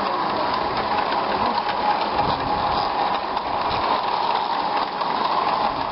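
Battery-driven Gauge 3 model of a GWR 0-6-0 pannier tank locomotive running with its goods wagons on garden track: a steady rolling noise of wheels on rail, with faint ticks.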